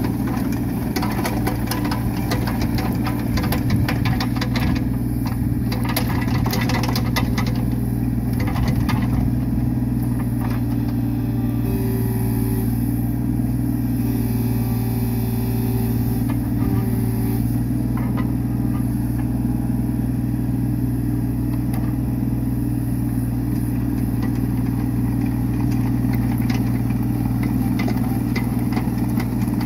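Hitachi ZX16 mini excavator's small diesel engine running steadily while the boom, arm and bucket are worked, with a higher whine coming and going for a few seconds past the middle and light clicks and rattles throughout.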